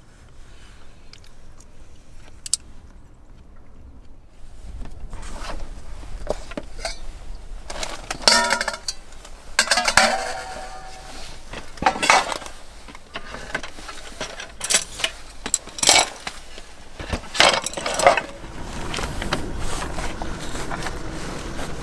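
Dishes and cutlery being handled, clinking and clattering in a run of sharp knocks from about five seconds in, with a few short ringing clinks in the middle.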